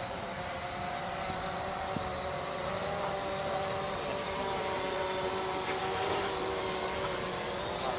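Multirotor camera drone in flight, its propellers giving a steady whine of several tones that waver a little as the motors adjust. It is flying in attitude mode without GPS position hold, so it drifts and is being corrected by hand. The whine grows slightly louder in the second half.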